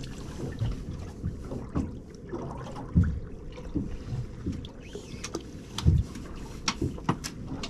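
Irregular knocks and bumps with a few sharp clicks, the sound of fishing gear being handled aboard a small boat after a fish has come off the line.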